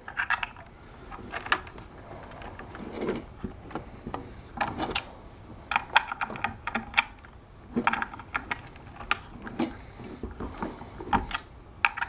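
Irregular clicks, scrapes and short rattles of a manual Phillips screwdriver turning screws and small metal parts being handled as the hoverboard's wheel-motor mounting screws are tightened.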